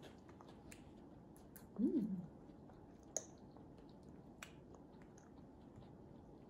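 Faint mouth noises and small clicks of a toddler chewing rice and handling a fork over a ceramic plate, with one short hummed voice sound about two seconds in.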